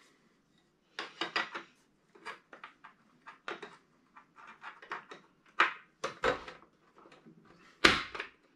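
Hard plastic clicks and knocks as battery packs and their hold-down are pushed and seated in the battery tray of a Losi Super Baja Rey 2.0 RC truck: a quick, irregular series of clacks, with a sharper knock near the end.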